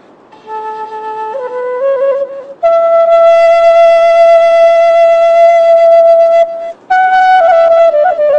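Background music: a single melody line that comes in about half a second in, steps upward in short notes, holds one long note for about four seconds, then moves on in shorter notes.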